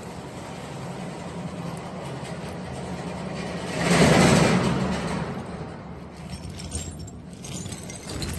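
Scrap metal shredding line running on engine aluminum scrap: a steady mechanical hum and grind, with a loud rush of noise about four seconds in that fades over a second or two.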